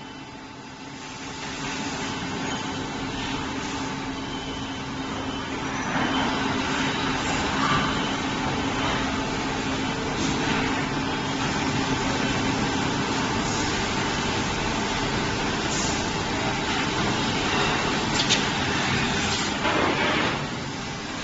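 Large injection moulding machine running, with a steady mechanical hum and a few held tones. Several brief rushes of noise come through it, about six, ten, eighteen and twenty seconds in.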